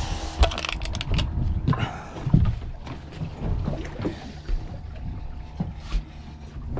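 Scattered knocks and thumps aboard a small fibreglass fishing boat at sea, over the low rumble of wind and water against the hull. The loudest knock comes a little past the middle.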